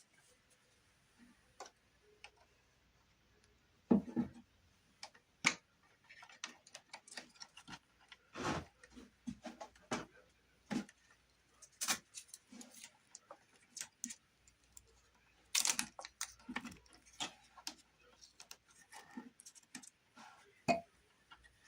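Irregular light clicks and knocks from hands-on work, with a few sharper knocks about four, five and a half, fifteen and a half and twenty and a half seconds in.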